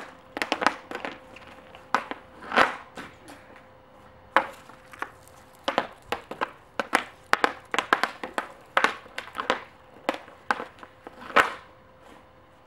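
Hockey stick blade on a puck and an outdoor ice surface: a run of irregular clacks and scrapes while stickhandling, with the loudest crack near the end as the puck is shot into the air.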